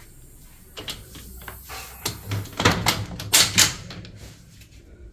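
Sliding screen door being handled and shut, a run of clacks and knocks from the frame and latch, the loudest between about two and a half and four seconds in.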